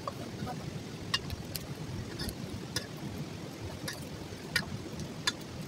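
Small wood fire of sticks crackling, with sharp irregular pops about once a second over a steady low rushing background.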